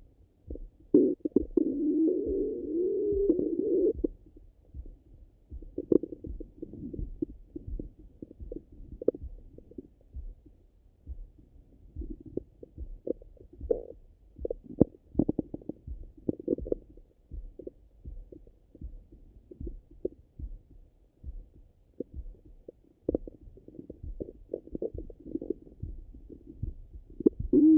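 Stomach and bowel gurgling heard through a stethoscope pressed to the belly after a meal. A long wavering rumble comes about a second in and lasts some three seconds, followed by many short muffled gurgles and pops.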